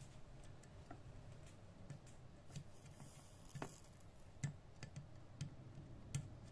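Faint, irregular small clicks and light taps, about eight of them spread unevenly, over a low steady hum.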